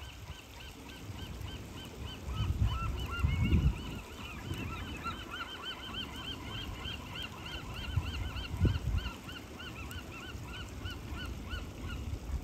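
A bird honking in a fast, even series of short calls, about three a second, with a second bird joining about three seconds in; the calls stop near the end. Low rumbling bursts lie underneath.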